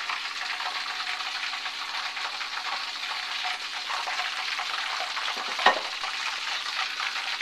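Hot deep-frying oil in a wok bubbling and crackling steadily, the oil left after pre-frying battered shrimp. A single sharp click stands out about five and a half seconds in.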